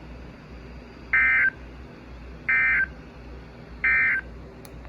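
Three short bursts of NOAA Weather Radio SAME data tones, evenly spaced about a second and a half apart: the EAS end-of-message code that closes the flash flood warning broadcast. A steady radio hiss runs underneath.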